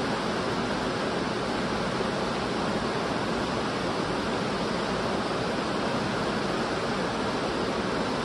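Steady rushing of flowing water, holding one even level throughout.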